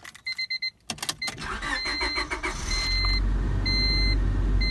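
Car engine cranking and starting, then running with a steady low rumble. Quick electronic beeps and a few clicks come first, and a dashboard warning chime sounds about once a second.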